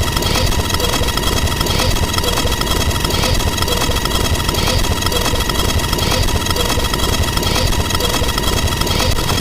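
A loud, steady, engine-like drone with a faint pulse repeating about every second and a half.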